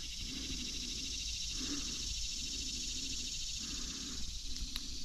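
Steady high-pitched buzzing chorus of insects, with a fine, fast, even pulsing to it.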